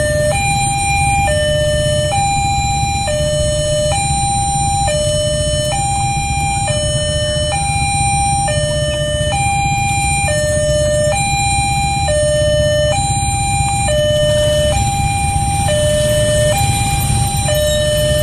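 Railway level-crossing warning alarm sounding while the crossing is closed: an electronic two-note chime that switches pitch about once a second and repeats without a break. A steady low engine rumble from the motorcycles queued at the crossing runs underneath.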